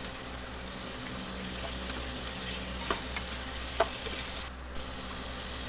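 Pork pieces frying in oil in a nonstick pot, sizzling steadily while being stirred with plastic spatula-tongs, with a few light clicks of the utensil against the pot.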